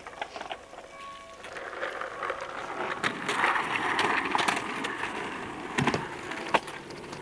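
Skateboard wheels rolling over rough asphalt, growing louder as the board passes close and then fading. Near the end come two sharp clacks as the board hits a small kicker ramp and lands.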